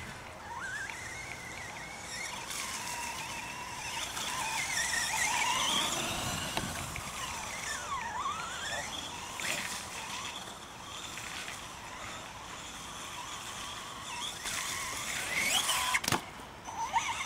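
Radio-controlled monster trucks' electric motors whining, the pitch rising and falling as the drivers work the throttle, with a few sharp knocks near the end.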